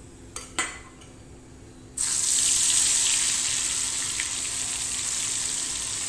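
Sun-dried vathal hitting hot oil in a kadai and deep-frying: a loud, hissing sizzle starts suddenly about two seconds in and keeps up steadily. Two faint taps come before it.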